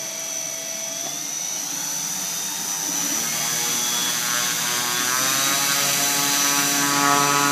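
HobbyKing CA120-70 brushless outrunner motor driving the big propeller of a 101-inch electric Sukhoi SU-26 model plane during a ground run-up. It runs steadily at first, then from about three seconds in it is throttled up, its pitch rising and getting louder.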